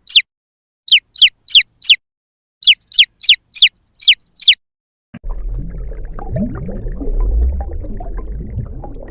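Eleven short, loud, high chirps, each falling quickly in pitch, come in quick groups with silence between. About five seconds in they stop and a rougher recording takes over, with a low rumble and a few lower calls that rise in pitch.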